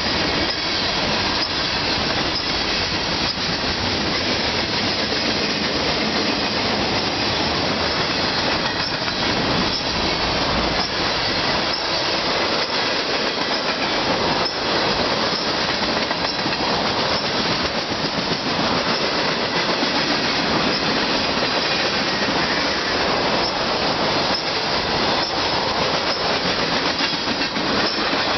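Freight train cars (tank cars and hoppers) rolling past on steel rails: a steady, loud rumble and rush of wheels on track, with frequent clicks and clanks from wheels and couplings.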